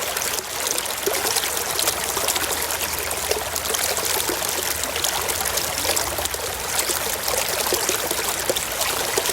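Water flowing and trickling steadily, a continuous babbling splash without pauses.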